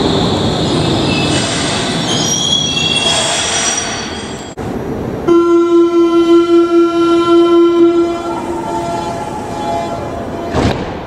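Berlin U-Bahn IK train running in and braking, with high brake and wheel squeal. Then a loud, rapidly pulsing electronic warning tone lasts about three seconds, the door-closing signal, and the sliding doors shut.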